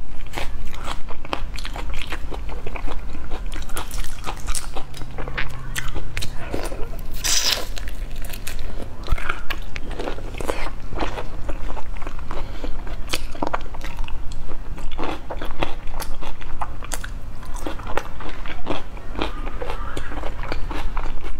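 Close-miked eating of marinated prawns: steady chewing and crunching with wet mouth smacks and clicks, several a second.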